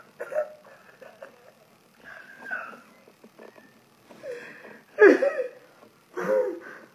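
A man laughing helplessly in short, broken bursts, so hard that it is hard to tell laughing from crying; the two loudest bursts come about five and six seconds in.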